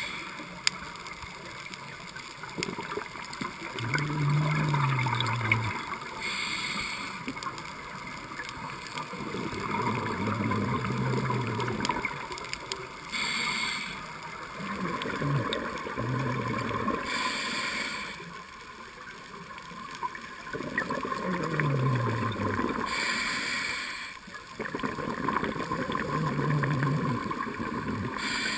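Scuba diver breathing through a regulator, about five breaths: each a short hiss alternating with a bubbly exhalation stream carrying a low wavering tone. The breathing is shaky from the diver shivering with cold.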